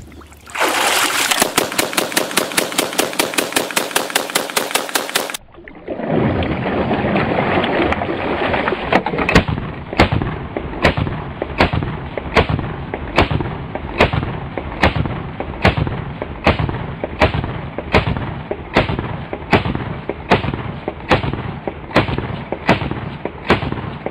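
AA-12 fully automatic 12-gauge shotgun firing long automatic bursts straight after ten minutes submerged in water, still cycling every round. A rapid burst of about five shots a second, a short break, then a long string of evenly spaced shots about one and a half a second.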